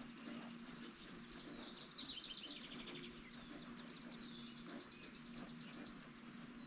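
Steady rain falls with a faint low hum behind it. A songbird sings two fast trills, the first about a second in and the second in the middle.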